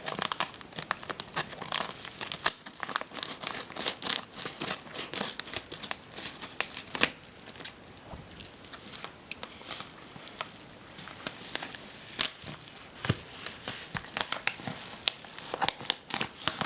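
Packaging being opened by hand: paper or plastic crinkling, rustling and tearing in irregular crackles throughout.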